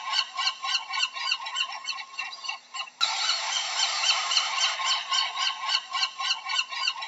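A large flock of seabirds calling in a dense chorus of short, overlapping calls, several every second. The recording breaks off and restarts abruptly about three seconds in.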